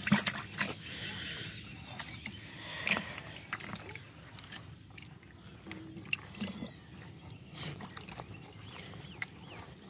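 Water splashing and sloshing in a plastic bucket of freshly caught small fish as a hand stirs through them. The splashes are sharpest at the start and again about three seconds in, then thin out to faint scattered splashes and taps.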